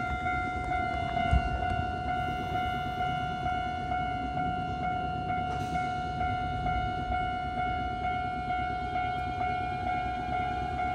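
Japanese railway level crossing's electronic warning bell ringing in a steady, evenly repeating pattern over a low rumble.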